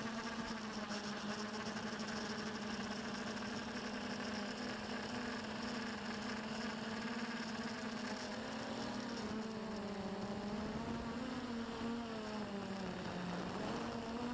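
Quadcopter drone's electric motors and propellers whining steadily at one pitch with many overtones. The pitch wavers and dips briefly near the end as the motors change speed to manoeuvre.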